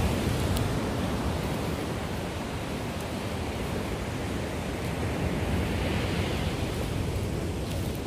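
Steady rush of sea surf and wind, with a low rumble of wind on the microphone. The rush swells a little about six seconds in.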